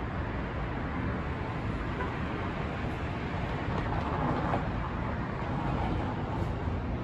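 City street traffic below: a steady rumble of vehicles, swelling about halfway through as one passes close.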